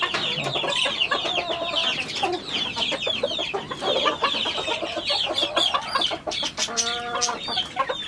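Chickens in a poultry shed: a dense, continuous chorus of short, high, falling peeps with clucking mixed in, and a louder cluck about seven seconds in.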